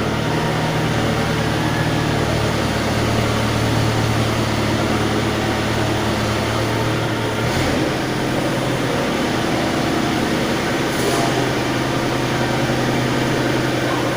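An engine running steadily, with a low hum that drops away about halfway through and leaves a rougher, noisier sound.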